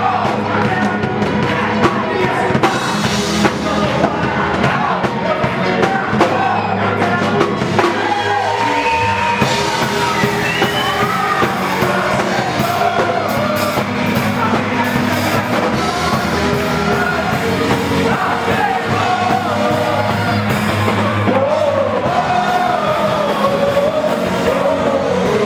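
Live gospel worship song: a voice singing over a band, with steady sustained bass notes underneath.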